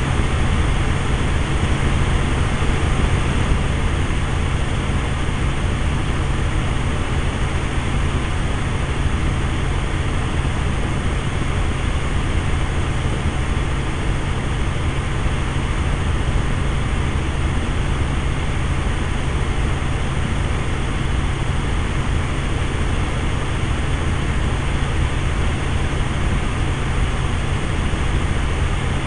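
Steady drone of a small aircraft's engine heard from inside the cabin, loud and unbroken, with a strong low rumble under a broad rushing hiss.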